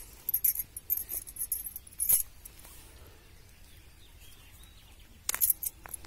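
Fine nylon fishing net being pulled and worked by hand off a trapped owl. A run of short, thin rustles and clicks lasts about two seconds, then a lull, then another brief burst near the end.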